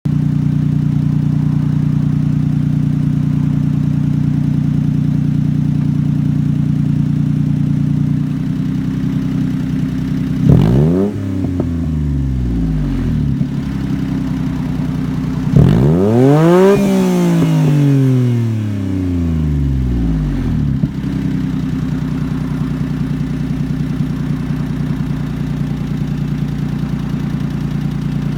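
Honda Beat's three-cylinder engine exhaling through a one-off titanium motorcycle silencer with a Mugen header and J-Works catalyst, idling steadily. About ten seconds in it is blipped once briefly, and a few seconds later it is revved higher and longer before falling back to idle.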